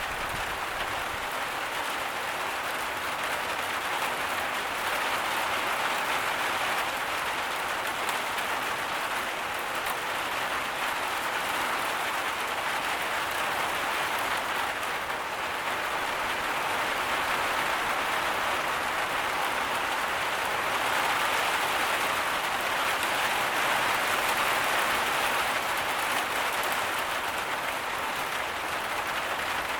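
Heavy tropical rain falling steadily, a dense even patter with no thunder.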